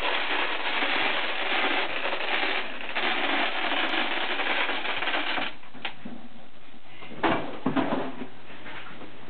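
1-inch river rock being poured into an interior French drain trench: a dense rattling stream of stones with a short break, stopping about five and a half seconds in, then a few single knocks of stones.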